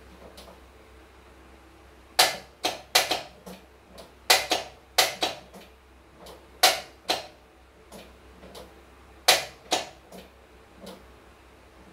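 Sharp mechanical clicks in loose pairs, about four pairs a couple of seconds apart, from the ignition key being turned and relays clicking in a 1977 Toyota Celica's freshly wired loom. No fuel pump hum follows: the pump is not running.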